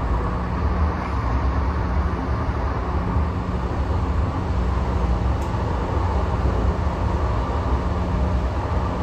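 Cabin noise of a Siemens S700 light rail car running between stops: a steady low rumble of the wheels on the rails with a steady low hum underneath.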